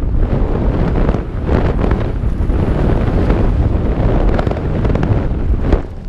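Wind buffeting an action camera's microphone as a mountain bike rides the trail at speed, with a constant low rumble and many short knocks and rattles from the bike over rough ground. The noise drops briefly just before the end.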